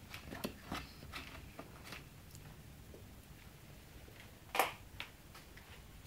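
Handling noises: a few light clicks and knocks, then one sharper, louder knock about four and a half seconds in, with a smaller tap just after.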